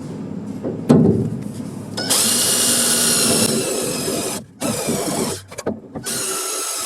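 Handheld power tool running with a steady high whine after a single knock, cutting out briefly twice and starting again.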